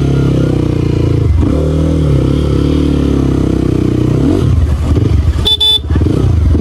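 Hyper X 250 dirt bike's engine running while riding, its pitch rising and falling with the throttle. A short high beep sounds about five and a half seconds in.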